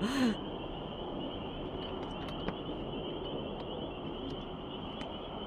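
A fish flopping on a wooden dock, making a few faint taps against the boards over steady outdoor background noise, with a short vocal exclamation right at the start.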